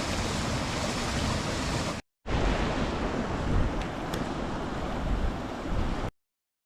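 Steady rush of water from a waterfall and river, cut out briefly about two seconds in and stopping abruptly near the end.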